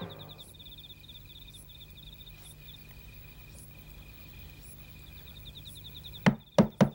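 Crickets chirping steadily, then three quick knocks on a door near the end.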